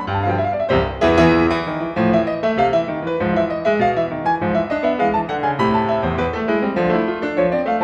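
Piano music, a steady stream of quick notes.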